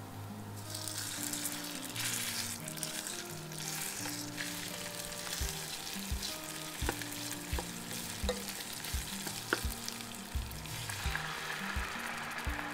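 Minced pork hitting hot oil and garlic and sizzling steadily as it is stir-fried, with a wooden spoon clicking against the pan. Near the end a sauce is poured in and the sizzle surges.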